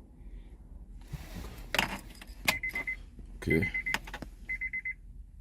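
A bunch of car keys jangling and clicking as they are handled. From about halfway in, an electronic beep repeats about once a second.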